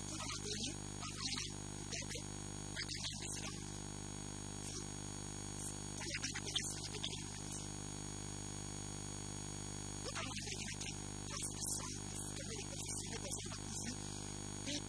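A steady electrical hum with many evenly spaced overtones, constant beneath intermittent bursts of a man's speech.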